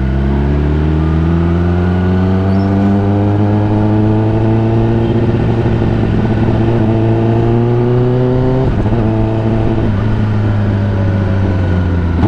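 Motorcycle engine running under way, its pitch climbing steadily for about nine seconds as the bike gathers speed. After a brief break the pitch eases slowly down.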